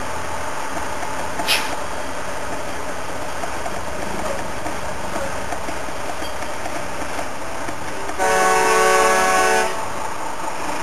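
Truck engines and traffic running steadily as convoy trucks pass close by, with a loud truck air horn blown once for about a second and a half near the end.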